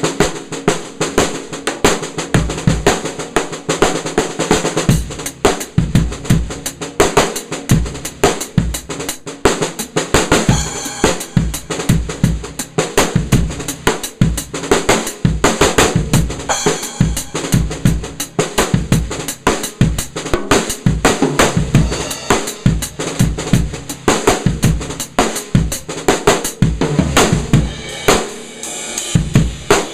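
ddrum Journeyman 13x7 snare drum tuned very low with the snares on, played in a continuous run of grooves and rolls with bass drum hits underneath.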